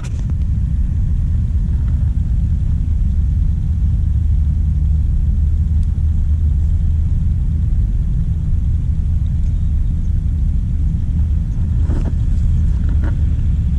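A steady low rumble, strongest in the deep bass, with a few faint ticks.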